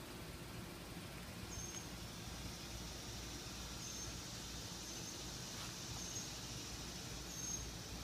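Outdoor garden ambience: a short, high chirp from a small bird or insect, repeated at the same pitch roughly once a second, over a low steady background noise.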